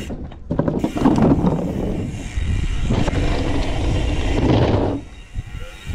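Norco Sight A3 enduro mountain bike being ridden: rear freehub ratchet clicking and tyres rolling on dirt, as a continuous rough noise that drops away briefly about five seconds in.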